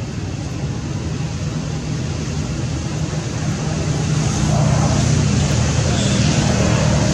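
A motor vehicle's engine running steadily as a low rumble, growing louder about halfway through.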